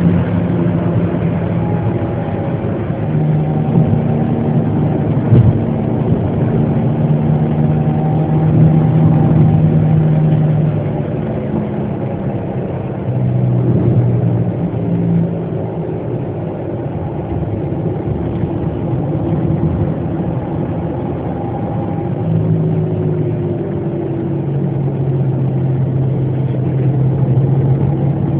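Car engine and road noise heard from inside the cabin while driving, the engine note rising and falling as the throttle changes. There is a single brief knock about five seconds in.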